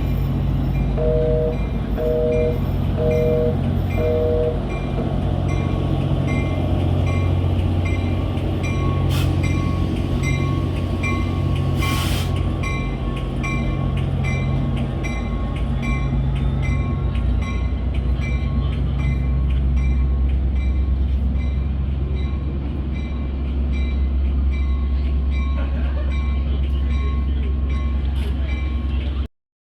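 Diesel passenger locomotive running at a station, with a steady low engine drone that shifts in note about two-thirds of the way through, and its bell ringing at an even pace, about two strokes a second. About a second in come four short two-note beeps.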